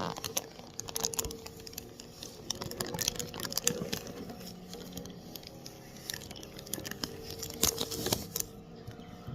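Plastic Lego pieces clicking and rattling as they are sorted and pressed together. There are clusters of sharp clicks about a second in and again three to four seconds in, and the loudest come near the end.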